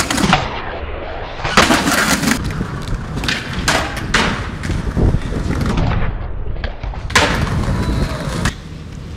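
Skateboard wheels rolling over stone paving, broken by several sharp clacks of the board popping and slapping down on landings from stair jumps.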